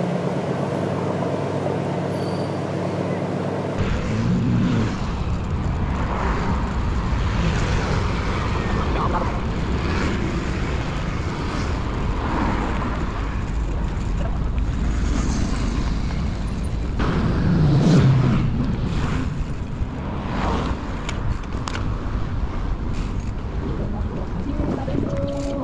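A harbour ferry's engine running with a steady low hum for about four seconds. After an abrupt change it gives way to street traffic and wind rumbling on the microphone while cycling.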